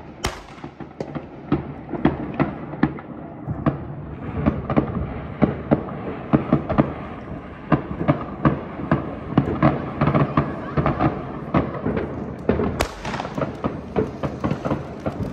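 New Year fireworks: a dense, unbroken volley of rocket bursts and firecracker bangs, several sharp bangs a second over a steady rumble. About thirteen seconds in comes a sharper, closer crack.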